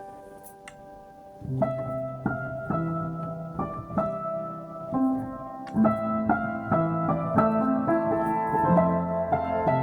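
Solo piano playing slow, gentle chords and melody. Notes fade softly for the first second and a half, then louder chords come in.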